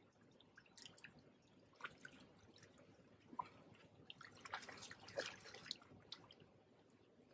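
Faint water splashes and drips as a hooked barbel is drawn into a landing net. The splashes come thickest about four to five and a half seconds in.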